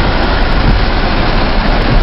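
Steady rush of heavy rain and splashing floodwater around a car being driven through a flooded street, with a low engine rumble underneath.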